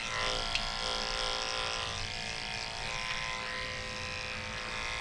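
Electric dog grooming clippers running steadily, with a brief click about half a second in.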